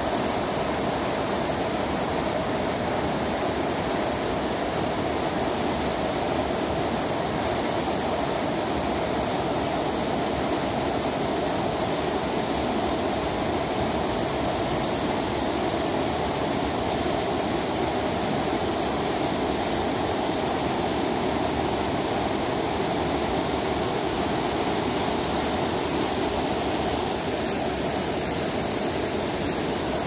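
Mountain stream cascading over granite boulders and rock slabs: a steady, unbroken rush of white water.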